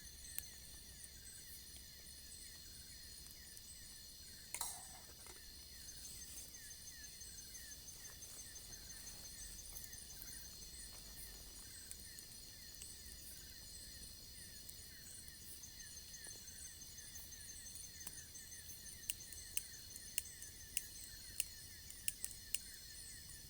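Faint, steady chorus of crickets and other night insects, a high pulsing chirr. One brief louder sound comes about four and a half seconds in, and a run of sharp clicks near the end.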